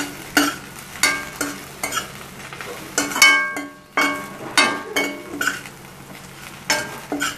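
A metal spatula stirring and scraping okra around a stainless-steel kadhai, one or two strokes a second, many of them knocking the pan so it rings briefly. A faint sizzle runs underneath from the pan on low heat.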